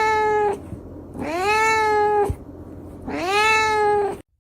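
A cat meowing: three long, drawn-out meows in a row, each about a second long and held at a steady pitch. The sound cuts off suddenly near the end.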